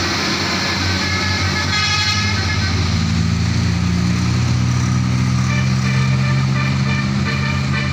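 Truck diesel engine running loudly and rising slightly a few seconds in, with the short tones of a 'telolet' multi-tone air horn sounding about two seconds in and in short repeated notes near the end.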